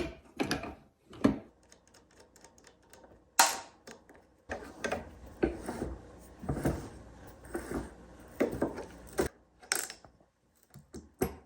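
Go-kart steering parts and hand tools being worked: scattered metal clicks and knocks, one louder knock, then several seconds of uneven mechanical clicking and rattling.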